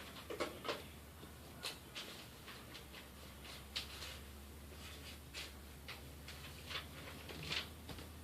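Scattered faint clicks and taps of objects being handled, about one or two a second, over a steady low hum.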